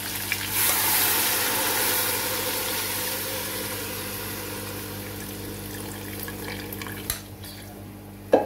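Chicken stock poured through a steel mesh strainer into a hot pot of fried chicken, splashing and sizzling, then gradually dying down as the pour slows. A sharp knock near the end.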